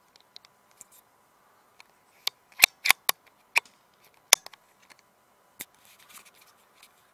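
Sharp metallic clicks of a rifle's action being worked after a shot, with a quick cluster about two and a half to three seconds in and another single loud click just past four seconds.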